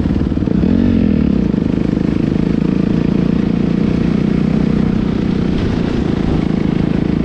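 Dirt bike engine running at high revs under load while riding, with a brief rise in revs about a second in, heard close from a camera on the bike.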